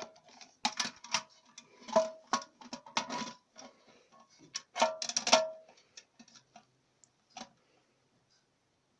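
Plastic toilet fill valve being fitted into a ceramic cistern: a quick run of clicks and knocks, some with a short ringing tone, thinning out after about five and a half seconds to a few last ticks.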